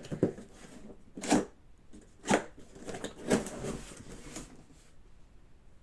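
Unpacking a cardboard box: cardboard and packing paper rustling and scraping, with four sharp handling sounds about a second apart.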